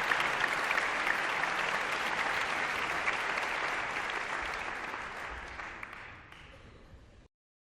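Audience applauding, a dense steady clapping that fades away gradually over the last few seconds before stopping.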